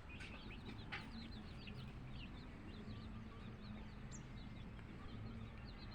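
Many short, high chirps of small birds repeating throughout, over a steady low rumble, with a single sharp click about a second in.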